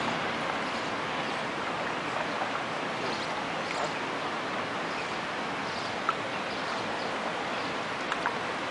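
Steady splashing and churning of water as a small boat is driven along a canal, with a couple of small knocks about six and eight seconds in.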